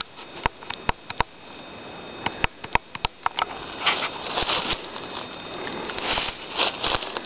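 Footsteps on dry leaf litter and twigs: a scatter of sharp clicks and small snaps at first, then rustling, crunching steps from about four seconds in.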